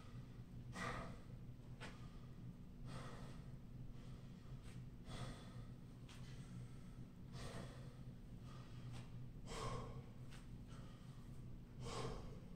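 A man breathing hard after a high-intensity exercise interval, with heavy breaths every one to two seconds as he recovers.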